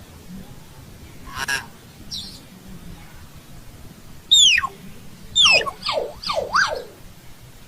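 Common hill myna calling: a short harsh note about a second and a half in, then loud whistles that fall steeply in pitch, followed by a quick run of falling and rising whistles in the second half.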